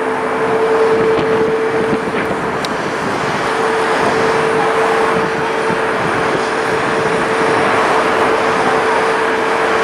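Boeing 737's turbofan engines running steadily as the airliner rolls slowly along the runway: a loud, even rush of jet noise with a constant low hum through it.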